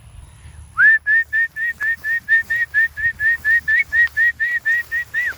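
A person whistling a fast run of short, same-pitched notes, about four a second, as a recall call before calling someone back.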